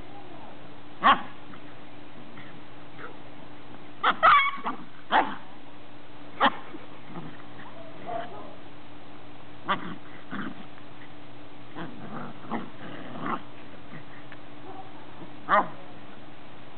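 Ten-week-old greyhound puppies play-fighting, giving short sharp yips and barks here and there, with a quick cluster of them about four seconds in and another loud one near the end.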